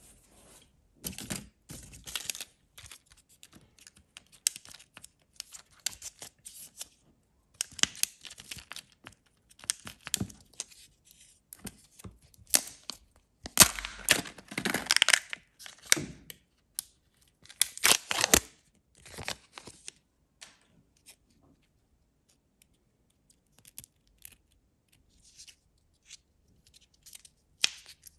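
Foil wrapper and foil lid of a Kinder Joy egg being torn and peeled open by hand, in repeated bursts of crinkling and tearing that are loudest about two-thirds of the way in. After that come only faint scattered handling clicks.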